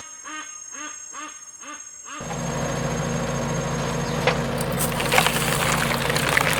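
A short run of about five quick, arching pitched chirps, then about two seconds in a heavy machine's engine comes in and runs steadily, with scattered clanks and knocks over it.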